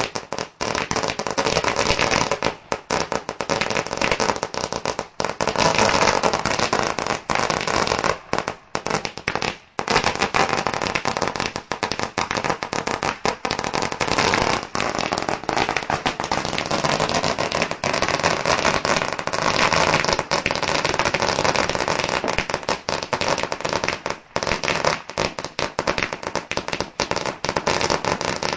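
Fireworks going off in a dense, near-continuous barrage of bangs and crackling, with only brief gaps.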